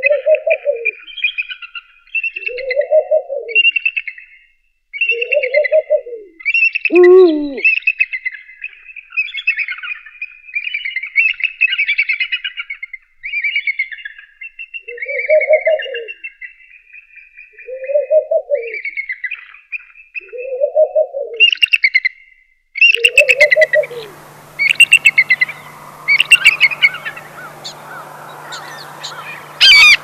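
Eurasian eagle owl hooting, a low hoot repeated about every two seconds, over a continuous run of high chirping bird calls. About 7 s in comes one call that drops steeply in pitch. From about 23 s the hoots stop and a steady hiss with a faint low hum comes in under the chirping.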